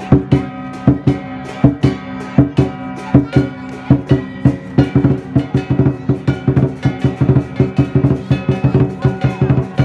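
Music with a steady drum beat and sustained guitar-like tones; the beat grows busier about halfway through.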